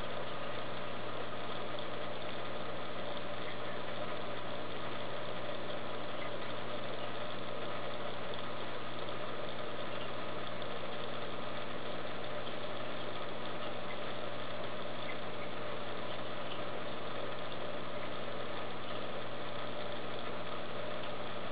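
Steady, unchanging hum and hiss of a saltwater aquarium's equipment running, typical of its circulation pumps.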